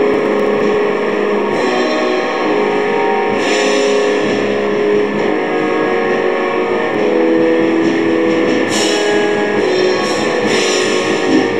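A black metal song: heavily distorted guitar playing a slowly shifting chord progression over drums, with cymbal crashes four times.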